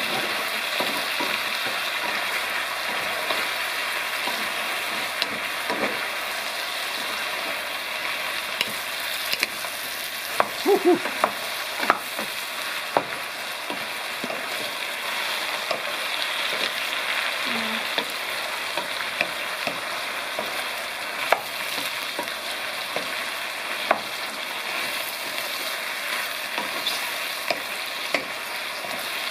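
Eggplant chunks and squirrel meat sizzling in a pot as they are stirred and turned with a wooden spoon, with a steady frying hiss and scattered sharp knocks of the spoon against the pot, several close together about a third of the way in.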